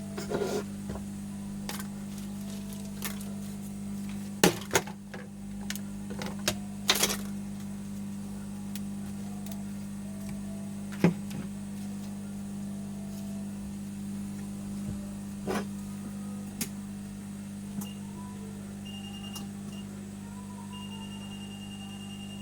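A steady electrical hum from bench equipment, with scattered sharp clicks and taps as small parts and tools are handled. A high, steady electronic beep comes in briefly twice near the end and then holds.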